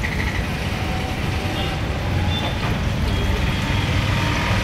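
Steady rumble of road traffic and street noise.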